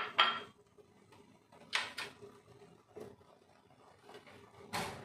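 Thick grape and tomato gravy boiling in a pan, giving a few short hissing sputters: at the start, about two seconds in, and again near the end.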